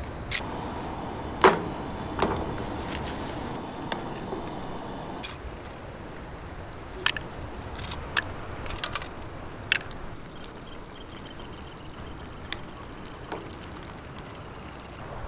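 A spoon tapping and clinking against a stainless steel pot while stirring food on a camp stove: scattered sharp clinks, the loudest about a second and a half in, over a steady low rushing noise.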